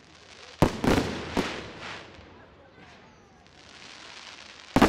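Aerial firework shells bursting: a sharp bang a little after half a second in, then two or three more over the next second, each trailing off into an echoing rumble. Near the end a hiss grows, then another loud bang.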